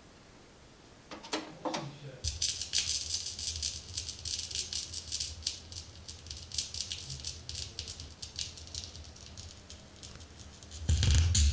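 Stylus of a Blaupunkt P-150 direct-drive turntable touching down on a worn vinyl record, with a few clicks. Then the steady crackle and pops of the lead-in groove play through the speakers over a low hum, and music starts near the end.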